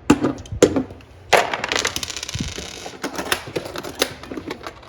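Hand tools and hard parts being handled. A few sharp knocks come first, then a dense rattling clatter lasting about a second and a half from just over a second in, then scattered knocks.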